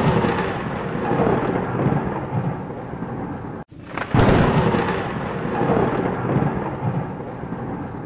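Rolling thunder over rain, a thunderstorm sound effect swelling and fading. It cuts out briefly a little under four seconds in, then returns with a sudden loud clap that rumbles away.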